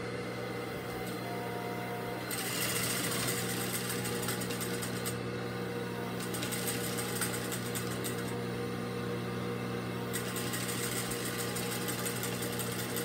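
Juki DDL-8700 industrial lockstitch sewing machine stitching fabric in three runs, starting about two seconds in, about six seconds in and about ten seconds in, with short pauses between. Its clutch motor hums steadily underneath, still spinning during the pauses.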